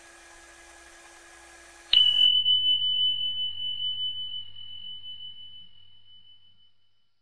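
Subscribe-button animation sound effect: a sharp click about two seconds in, then a single high bell ding that rings on and slowly fades away over about four seconds. A faint hiss comes before the click.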